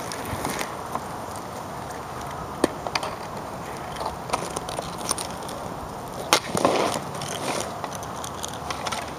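Street hockey sticks scraping and clacking on asphalt, with a few sharp cracks of shots; the loudest comes about six seconds in.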